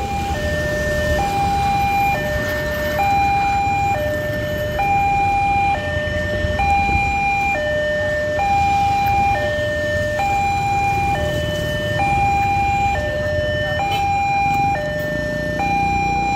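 Railway level-crossing warning alarm sounding two alternating tones, high and low, each held just under a second, warning of an approaching train as the barrier comes down. A low rumble of waiting motorcycle and truck engines lies underneath.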